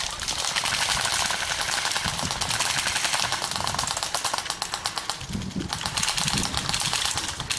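Airsoft guns firing on full auto: a fast, rattling string of clicks that runs on without a break.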